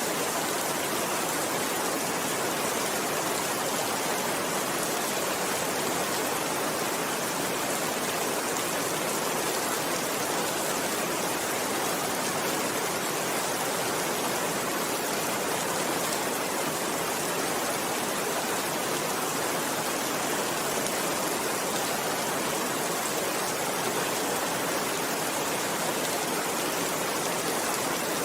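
Steady rainfall: an even, unbroken hiss with no thunder.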